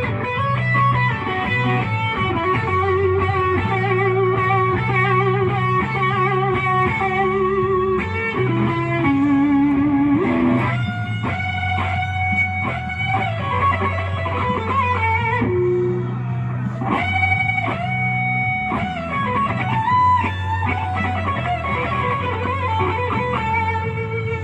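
Electric guitar playing a slow blues lead, with bent notes and wide vibrato, over steady low bass notes.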